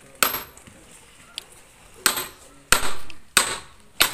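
Hammer striking steel: one sharp metal-on-metal blow near the start, then four more about two-thirds of a second apart, each with a brief high ring.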